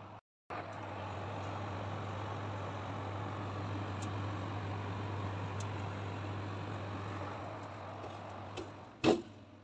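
Built-in convection oven running at temperature, its fan giving a steady hum. A single sharp knock near the end.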